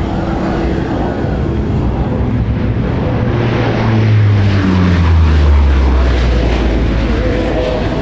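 A Lockheed C-130 Hercules's four turboprop engines and propellers in a low fly-by. The sound swells as the aircraft passes, is loudest about four to six seconds in, and drops in pitch as it goes away.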